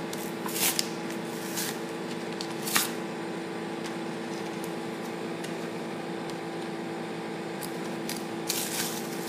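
Kit packaging being handled and pulled open by hand, with a few short crinkling crackles, the clearest about a second in, near three seconds, and again near the end, over a steady low hum.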